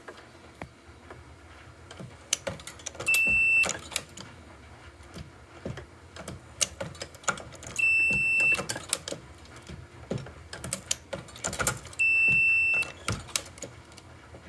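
Dillon XL650 progressive reloading press worked through three strokes: clacks and clicks from the ram and shell plate, with a high electronic beep lasting under a second on each stroke.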